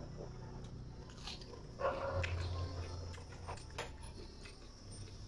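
Close-up eating sounds of a person eating rice and dal by hand: chewing and wet mouth smacks with a few sharp clicks. A louder, brief sound comes about two seconds in, followed by a low hum lasting about a second.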